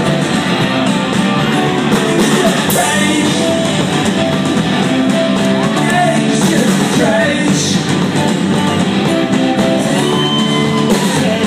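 Live rock band playing loud: electric guitar and drum kit with a singer's voice over them.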